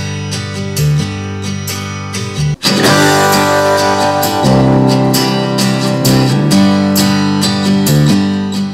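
A song with guitar playing through Creative T15 desktop speakers, cutting out for a moment about two and a half seconds in, then the same kind of music playing through a UE Roll Bluetooth speaker for a sound comparison.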